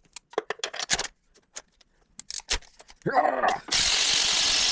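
Light metallic clicks and clinks of a socket and ratchet at work on a spark plug. About three-quarters of the way through, a loud, steady hiss starts and keeps going.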